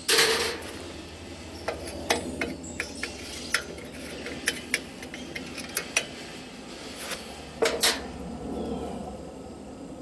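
Metal hand tools and small engine parts clinking and clattering as a screwdriver and loose carburetor fasteners are handled, with a loud clatter at the start and another about eight seconds in, and scattered sharp metallic clicks between.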